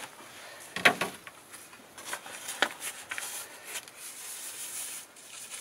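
Hand pressing compost down in a thin plastic seed punnet: soft rubbing with a few sharp knocks and clicks, the loudest about a second in.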